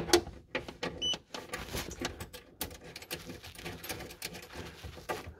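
Clicks, knocks and rattling of a cable plug being worked into a socket on the underside of a massage chair's base, with a short high tone about a second in.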